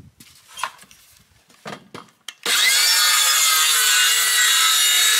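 Makita 18 V cordless circular saw starting about halfway in and cutting through a board with a steady high whine over the noise of the cut, after a few light handling clicks. The saw's TCT blade is really blunt.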